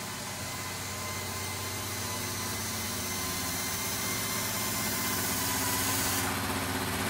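An engine running steadily at a constant speed, growing gradually louder.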